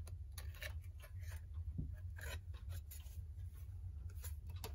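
Light, scattered clicks and scrapes of a 1930s Hammond Riviera alarm clock's face and case being handled as the face is worked loose, over a steady low hum.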